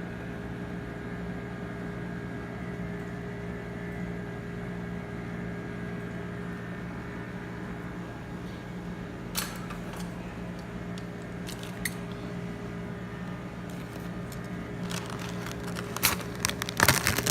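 A parcel being handled and opened: scattered clicks and rustles of packaging, growing into a busy run of clicks and crinkling near the end, over a steady low electrical hum.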